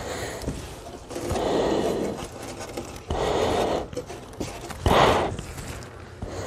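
Loose cellulose insulation being scooped by hand from its bag and stuffed into holes in a hollow door: rustling and scraping in three bursts, the last one short and the loudest, about five seconds in.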